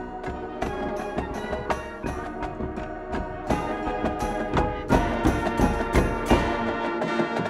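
Marching band playing its field show: sustained brass chords with percussion, swelling louder about halfway through with heavy drum hits in the second half.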